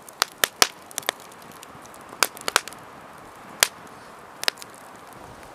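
Campfire crackling, with about ten sharp, irregular pops over a faint steady hiss.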